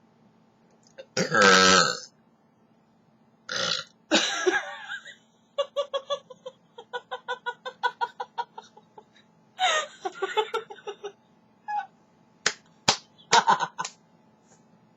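A person's loud, drawn-out belch about a second in, the loudest sound. Shorter vocal noises follow, including a run of quick pulses like laughter, and a few sharp clicks near the end.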